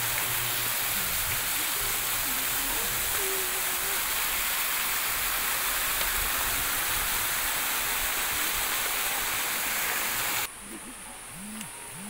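Rushing water of a rocky forest stream, a loud steady hiss. It cuts off abruptly about ten seconds in, leaving a quieter background of buzzing insects and faint voices.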